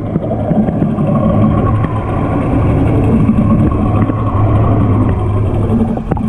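An engine running steadily and loudly, with a low even hum.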